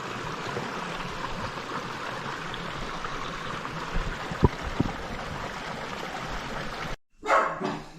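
Creek water running steadily over rocks, with two short rising chirps about four and a half seconds in. It cuts off abruptly near the end, and a man starts speaking.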